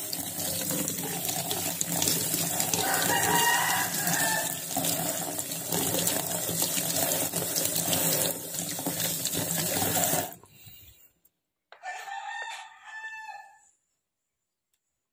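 Tap water running onto hands and a piece of chicken stomach in a stainless-steel sink, splashing into a plastic colander. It is shut off suddenly about ten seconds in. A rooster crows for about two seconds near the end.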